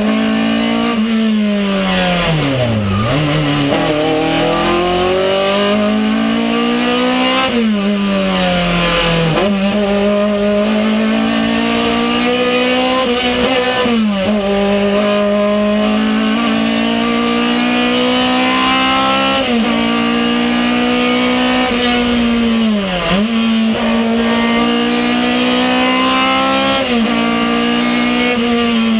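Hillclimb race car engine, heard from inside the cabin, held at high revs under hard acceleration. Its pitch repeatedly climbs and then drops sharply with gear changes and lifts for corners, dipping deepest about three seconds in and again near the end.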